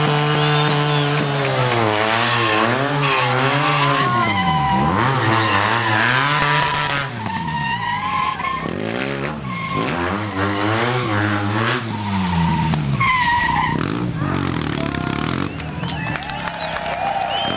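BMW F800R stunt motorcycle's parallel-twin engine held at high revs, then revved up and down again and again through a stunt routine, with tyre squeals at several points.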